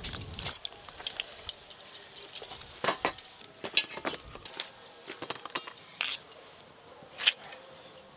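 Irregular light clinks and taps of wet eggplant slices and hands against stainless steel bowls and a steel plate during vegetable prep. The sharpest clinks come about four and seven seconds in.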